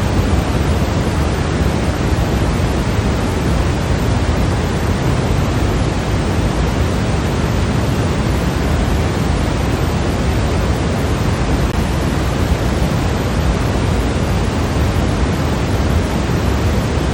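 Steady, unchanging electronic white noise: a constant even hiss, fuller toward the low end.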